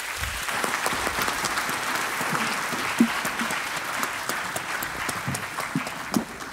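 A large audience applauding a finished lecture, many hands clapping together. The clapping swells and then dies away near the end.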